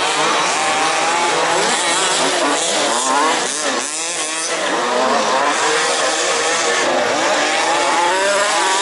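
Several 1/5-scale petrol RC off-road cars racing, their small two-stroke engines revving up and down over one another in a constant buzzing chorus.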